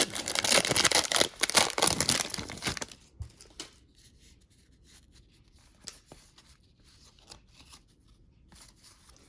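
A SkyBox basketball card pack's wrapper being torn open and crinkled, loud and crackly for about the first three seconds. After that, only faint small ticks and rustles of cards being handled.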